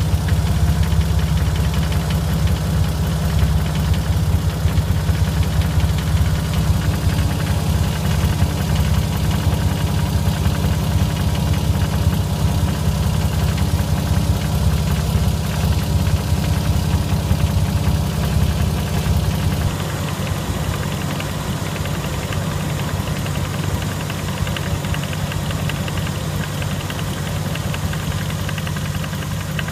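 Vehicle engine idling steadily, recorded because it makes an abnormal noise. About two-thirds of the way through the deep low rumble falls away and it runs a little quieter.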